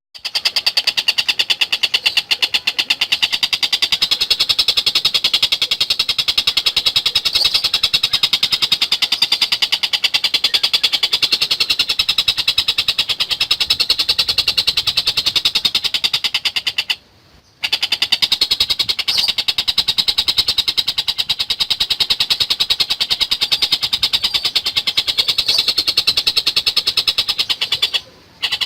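Tengkek buto kingfisher giving a long, loud, very fast rattling chatter. The rattle breaks off briefly twice, about 17 and 28 seconds in.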